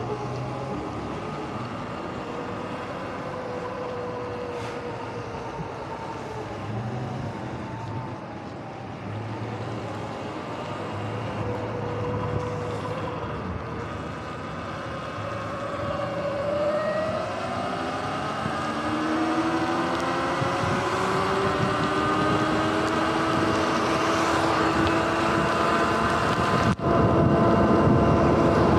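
Sur-Ron Light Bee electric dirt bike's drivetrain whining under a wash of tyre hiss on wet pavement and wind. The whine wavers at low speed, then rises steadily in pitch and grows louder from about halfway as the bike speeds up.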